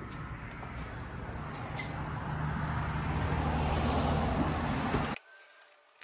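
A motor vehicle engine running, with a low steady hum that grows gradually louder and then cuts off suddenly about five seconds in.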